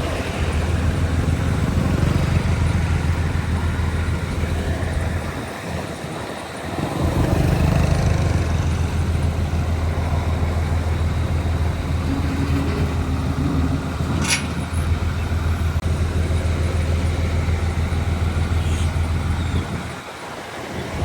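Heavy diesel engine of earthmoving machinery running under work, its drone dropping briefly about six seconds in and again near the end, then picking back up. A single sharp knock about two-thirds of the way through.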